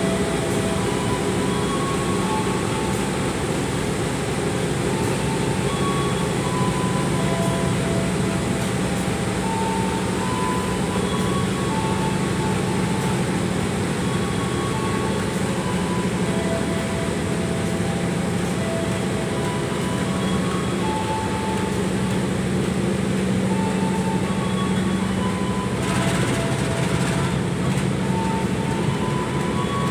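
A departing passenger train rolling slowly past: a steady rumble of coach wheels on the rails under the drone of the diesel locomotive pulling away. A faint tune plays along, and a brief hiss sounds near the end.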